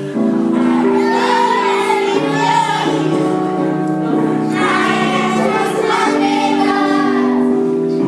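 A children's choir singing a song over musical accompaniment, with long held notes.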